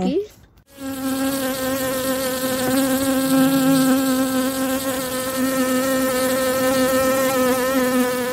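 Insect buzzing in a steady, even hum that starts just under a second in and holds nearly the same pitch throughout.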